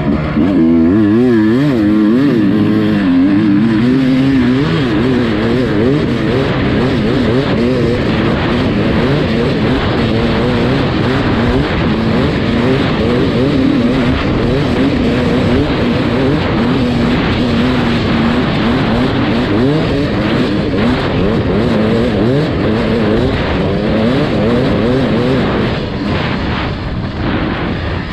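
Beta RR250 two-stroke enduro motorcycle engine running hard, its pitch rising and falling again and again as the throttle is worked while riding through sand. The sound is picked up by a camera mounted on the bike.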